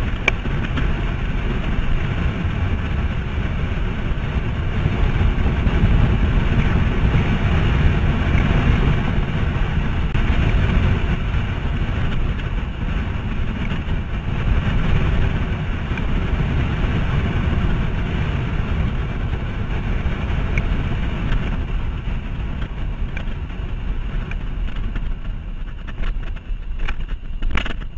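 Wind buffeting the microphone of a camera on a road bike at descending speed: a steady low rumbling rush, with a few brief crackles near the end.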